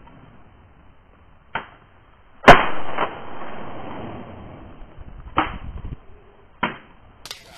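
Shotgun shots: one very loud, close shot about two and a half seconds in, with a tail that dies away over a second or two, and three quieter shots, one about a second before it and two about three and four seconds after it.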